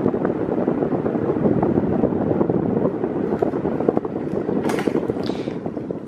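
Britânia Turbo B400 40 cm fan running at its lowest speed: a steady rush of air, with the airflow buffeting the microphone. A brief faint rustle comes about five seconds in.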